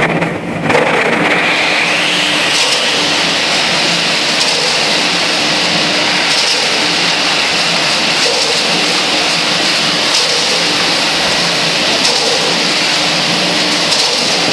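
Mortar mixer running steadily: a motor hum under a continuous rushing hiss of mortar and fibres churning in its steel drum.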